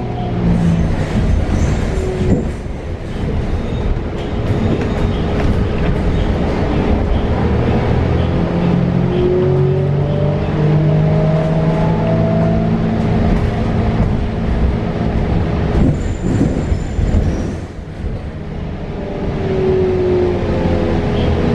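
Interior of a 2022 New Flyer XE40 battery-electric bus underway: the Siemens ELFA2 electric drive whines, rising in pitch as the bus speeds up and falling near the end as it slows, over a steady road rumble with occasional knocks and rattles.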